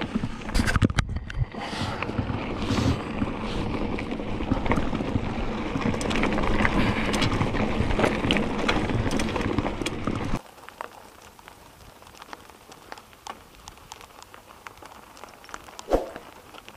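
Mountain bike tyres rolling over loose rocky gravel: a dense crunching crackle with rattling clicks, which cuts off abruptly about ten seconds in, leaving a low hush with a few faint ticks.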